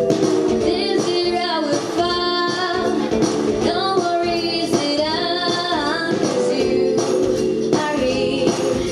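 A young female vocalist singing a Christmas pop song into a handheld microphone over instrumental accompaniment, her held notes wavering with vibrato.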